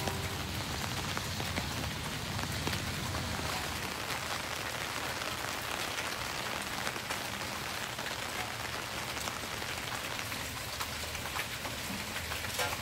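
Steady rain falling: an even hiss with the patter of many individual drops.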